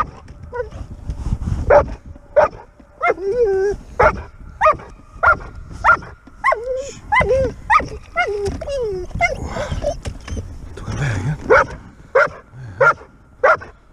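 A dog whining and yipping in a fast run of short, high cries, about two a second, some drawn out into wavering whines: eager excitement at a fish in the water.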